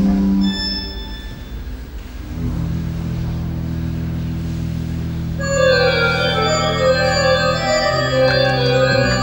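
Pipe organ playing sustained chords. About two seconds in, low held bass notes come in, and about halfway through a loud, dense cluster of many higher notes enters over them.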